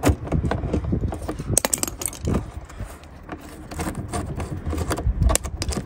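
Irregular small metallic clicks and clinks as an 8mm socket is turned by hand and drawn off a bumper fixing bolt, with rubbing and handling noise underneath.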